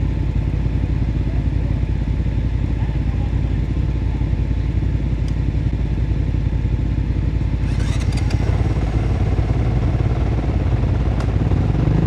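Motorcycle engine running steadily while riding on the road, with a few brief clicks about eight seconds in.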